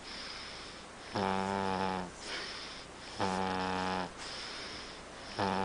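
Snoring: a steady rhythm of pitched snores, each lasting just under a second and about two seconds apart, with softer breathing between them. Two full snores sound, and a third begins near the end.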